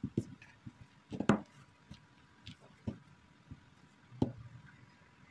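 Wooden rolling pin rolling over dough on a countertop, with several scattered sharp knocks; the loudest come a little over a second in and about four seconds in.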